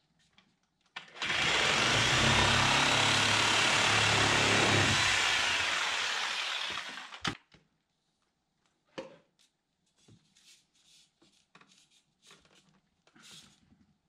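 Reciprocating saw cutting through a vent pipe for about six seconds, trailing off as the cut ends. A sharp knock and a few light knocks and clicks follow.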